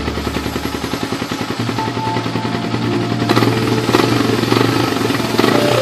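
Yamaha New Vixion's 150 cc single-cylinder four-stroke engine running through an aftermarket exhaust. It idles at first, then from about halfway in it is blipped several times with the throttle.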